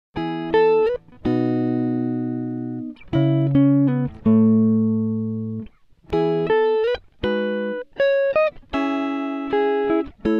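Background music: a clean plucked guitar playing a melody of chords and single notes, each note ringing out and fading.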